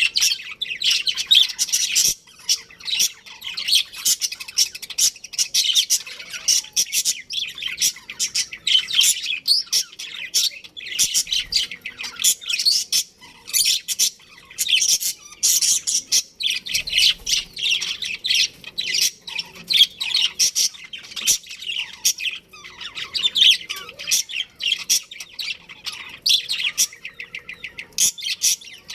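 Budgerigars chirping and chattering without pause: a dense run of rapid, high-pitched chirps overlapping one another.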